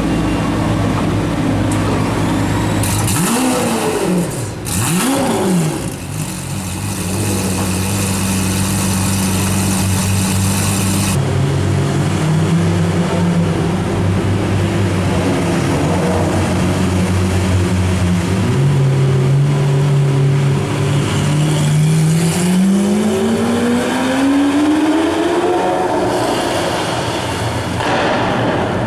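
Lamborghini Aventador's V12 running loud through an iPE aftermarket exhaust, inside a covered carpark. It idles, is blipped twice in quick succession a few seconds in, then settles to a steady idle. Near the end the note rises steadily as the car accelerates away.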